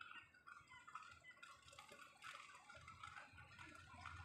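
Near silence with faint, distant seagull calls, short and irregular, and a faint low rumble that comes in in the second half.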